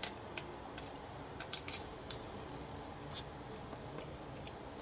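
Handling of a study Bible's thin pages: a few faint, scattered ticks and rustles of paper over a quiet room hiss.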